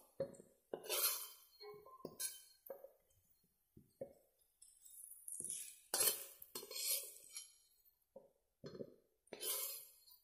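Metal spatula scraping and clinking against a metal kadai in a series of separate strokes, as fried potato pieces are scooped out of the pan.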